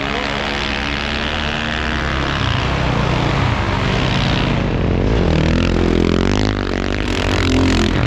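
Snowmobile engine running under load, its pitch wavering up and down as the revs change.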